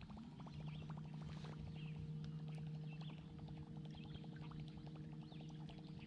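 Steady low hum of the boat's bow-mounted electric trolling motor, with a rapid, even ticking through roughly the first half as the baitcasting reel is cranked. Faint bird chirps sound over it.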